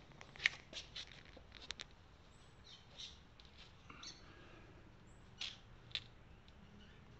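Faint, scattered sharp clicks and ticks over a low background, with two brief high chirps; no engine running.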